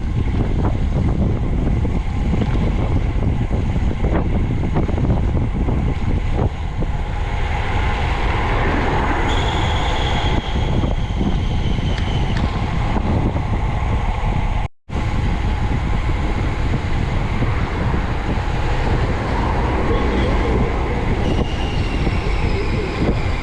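Steady rumble of wind buffeting the microphone of a camera on a moving bicycle, with traffic passing, heard as faint whines that fall slowly in pitch twice. The sound cuts out for an instant about halfway through.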